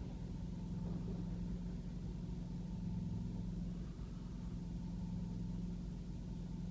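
Diesel railcar engine running steadily, a low even hum with no change in pitch.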